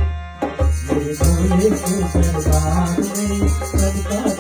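Devotional bhajan music between sung lines: an instrumental passage with a steady, deep percussion beat and pitched accompaniment over it.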